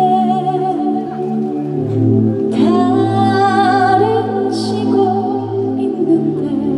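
Trot song music played live over a stage sound system: a vibrato melody line holding long notes, sliding up into a higher held note about two and a half seconds in, over steady bass and sustained chords.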